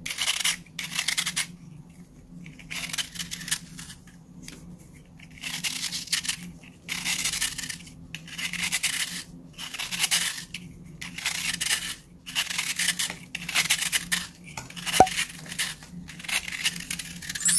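Knife blade scraping and cutting into a block of packed baking soda, a dry crunching and crumbling in repeated strokes about a second apart. Near the end, hands squeeze the powdery block apart.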